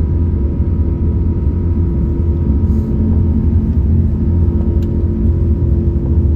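Steady low rumble of an Airbus A330neo airliner heard from inside the cabin, its engines running, with a few steady tones above the rumble.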